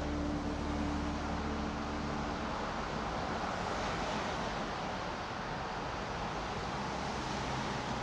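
Steady rushing noise of wind and motion on a moving camera's microphone as it travels along a dirt forest trail, with the tail of background music fading out in the first couple of seconds.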